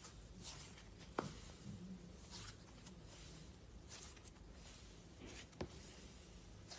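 Cloud slime being handled: soft, faint crackly swishes as it is stretched and pressed, with two sharp little clicks, about a second in and again near the end.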